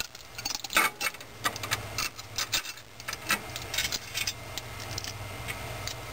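Small metal clicks and clinks of bolts, flat washers and nylon locking nuts being handled and fitted through an ignition coil's steel mounting bracket by hand, over a low steady hum.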